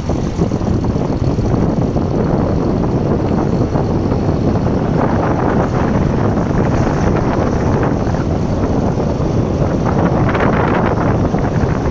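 Car driving along a paved road: steady rush of wind across the microphone mixed with tyre and engine noise, with a slightly brighter swell of noise near the end.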